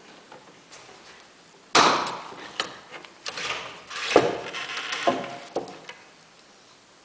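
A sudden loud knock, then about four seconds of irregular knocking and clattering, as of hard objects being handled and set down. No motor is running.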